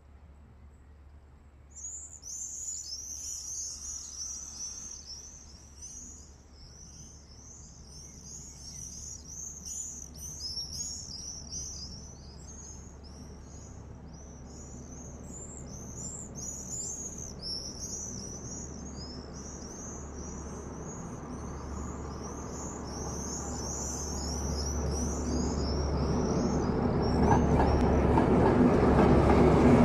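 Small birds chirping busily over an approaching diesel-hauled train. The rumble of the DR class V100 (112 302-5) diesel-hydraulic locomotive grows steadily louder through the second half, reaching its loudest as the locomotive draws level at the end, with a steady engine drone over the rail noise.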